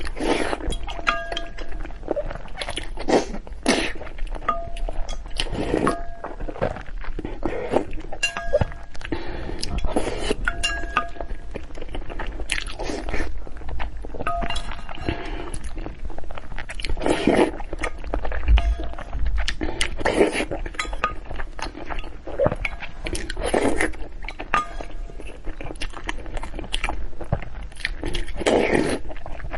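Eating sounds: utensils clinking against a bowl and dishes, with chewing and crunching of food, in many short sharp clicks and brief bursts.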